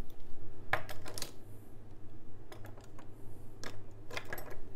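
Plastic fountain pens clicking and clattering against each other and the wooden tabletop as they are pushed and rearranged by hand, in a few short clusters of clicks.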